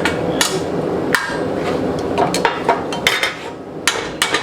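About ten irregular hammer blows on a hot flat steel bar as it is bent to a curve, each a sharp metallic strike.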